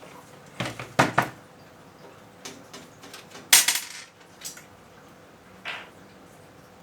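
Handling noise of computer parts: several sharp clicks and clattering knocks of hard metal and plastic, in short groups, the loudest rattle about three and a half seconds in.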